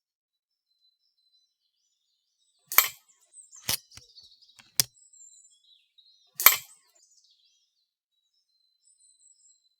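Two sharp cracks about four seconds apart, with a couple of lighter metallic clicks between them and faint birdsong behind: shots from an FX Impact Mark 1 .177 air rifle, with slugs striking a metal reset target.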